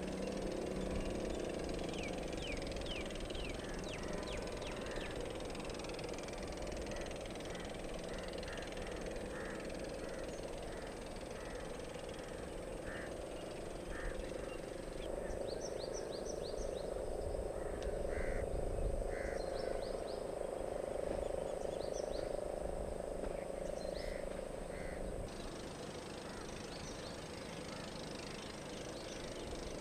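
Outdoor ambience: a steady low hum with short animal calls repeating about once a second, and a run of quick high chirps near the start.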